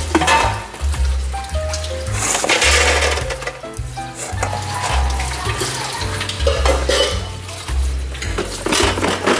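Chestnuts being dropped by hand into a metal air-fryer basket, clattering against the grate and each other several times, over background music with a steady bass line.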